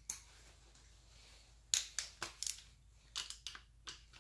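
Sharp metallic clicks and clinks of a socket wrench being fitted and worked on an engine's water pump bolt, at irregular spacing: one near the start, a cluster about two seconds in, and a few more about three seconds in.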